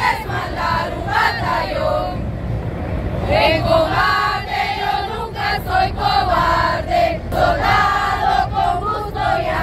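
Female navy sailors marching in formation, chanting a cadence together in loud shouted voices, with a short pause about two seconds in, over a crowd and street rumble.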